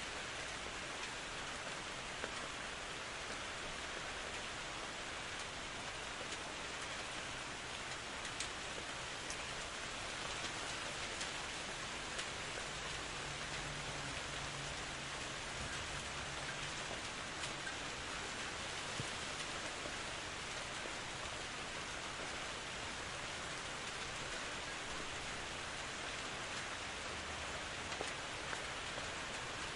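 Steady rain falling, an even hiss with occasional individual drops ticking sharper above it.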